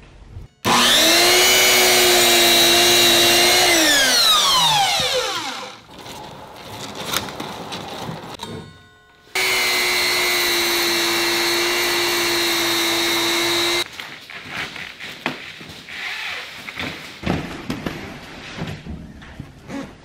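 Electric circular cutter cutting pleated mesh window-screen: the motor whines up suddenly, runs steady for about three seconds, then winds down with a falling pitch. A few seconds later it runs again for about four and a half seconds and stops abruptly, followed by light knocks and rustling as the mesh is handled.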